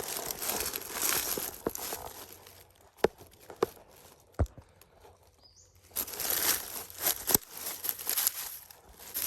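Rustling and crunching in dry leaves and brush as someone moves and handles gear on a forest slope, with a quieter stretch in the middle broken by a few sharp knocks.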